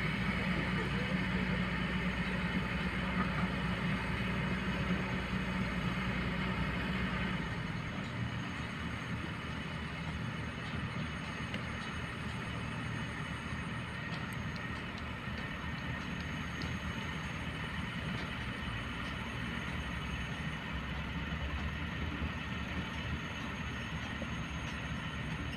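Diesel dump truck engines running as the trucks drive across a dirt work site. A steady low engine hum is louder for the first seven seconds or so, then drops to a quieter, even running sound.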